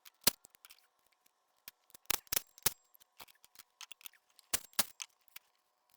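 Sharp, irregular clicks and clinks of hand tools and small parts during engine-bay disassembly, sped up in a time-lapse, over a faint steady hum.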